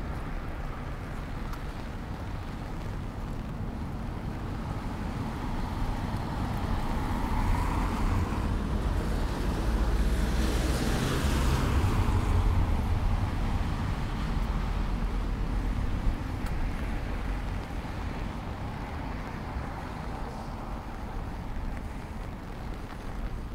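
Gusty wind buffeting the microphone with a low rumble that grows stronger in the middle, and a car passing on the wet road about ten seconds in, its tyres hissing on the wet asphalt.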